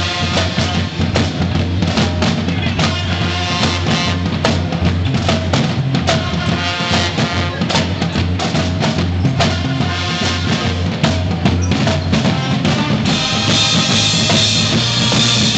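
School pep band playing a loud brass-and-drum tune, trombones to the fore over a steady drumbeat. About thirteen seconds in the drum hits drop away and a steadier, brighter sound carries on.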